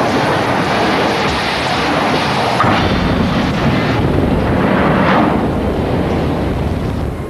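Loud, continuous rumbling roar of a train crash, with no clear pitch, swelling around three and five seconds in and starting to fade near the end.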